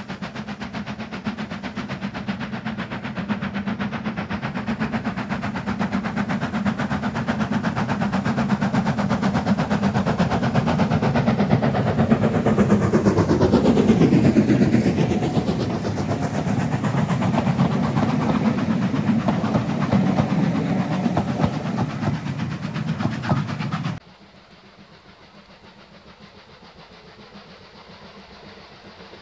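Steam train hauled by Ivatt Class 2MT 2-6-2 tank engine No. 41241, approaching and passing close by with its coaches. It grows steadily louder to a peak about halfway through, with a fall in pitch as it goes by, and the coaches keep rolling past. It cuts off abruptly near the end, leaving only a faint steady rumble.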